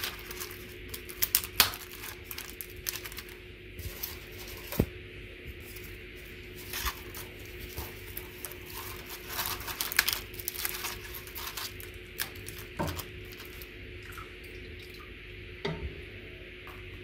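Dry güllaç sheets (brittle starch wafers) crackling and crinkling in irregular snaps and rustles as hands lay them in a glass baking dish.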